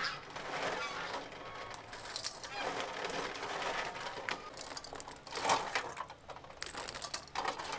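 Quail eggs being washed by hand in a metal basin of water: the shells clicking and rattling against each other amid sloshing water, in irregular bursts.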